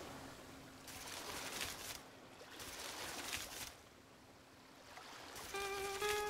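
Soft rushing water noise that swells twice, like waves washing in, then dies down; a few held music notes come in near the end.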